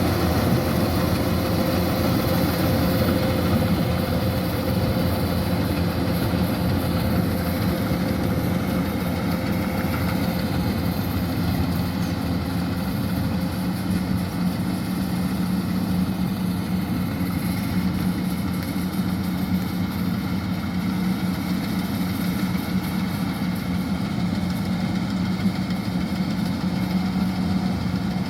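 Kubota DC-105X combine harvester's diesel engine running steadily, an even engine hum with no change in speed.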